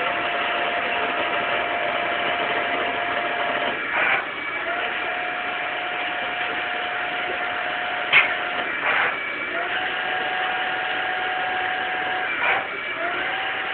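CNC lathe running a program: a steady machine whine that holds for three to four seconds at a time, broken every few seconds by a short rushing burst before the whine picks up again, in a repeating cycle.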